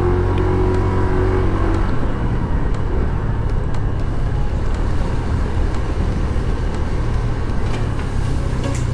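Steady riding noise of a motorcycle, picked up by a lavalier mic inside the rider's helmet: a continuous low engine hum under a haze of wind and road rush.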